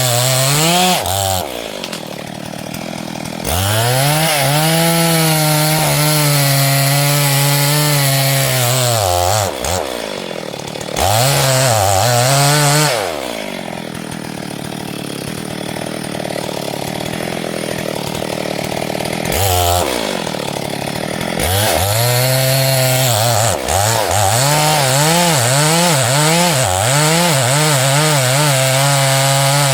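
STIHL two-stroke chainsaw running at high revs, its pitch dipping and climbing back up several times.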